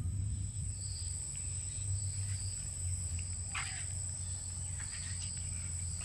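Insects droning in a steady high-pitched whine over a steady low hum, with a brief chirp about three and a half seconds in.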